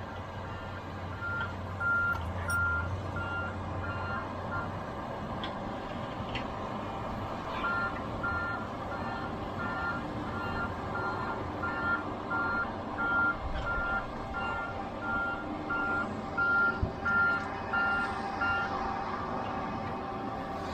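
Backup alarm of a heavy logging machine beeping about twice a second while the machine reverses, stopping for about three seconds partway through and then resuming, over the steady running of its diesel engine.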